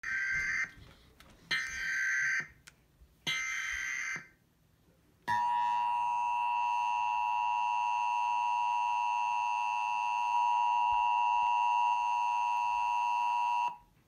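Emergency Alert System tones: three short buzzy SAME header data bursts about a second apart, then the EAS two-tone attention signal (853 and 960 Hz) held steady for about eight seconds before cutting off.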